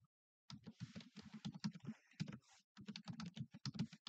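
Typing on a computer keyboard: a quick run of key clicks that starts about half a second in and breaks off briefly near the middle.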